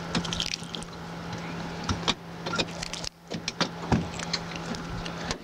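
A steady low motor hum with sharp clicks and knocks scattered over it, the handling of a fish and tackle on an aluminium boat. The hum stops near the end.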